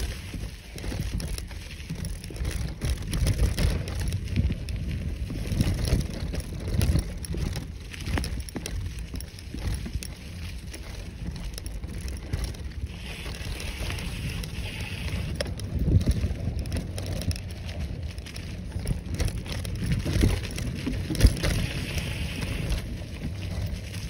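Bicycle rolling fast along a leaf-littered dirt trail: tyres crackling over leaves and twigs, with scattered knocks over bumps and a low rumble of wind on the microphone.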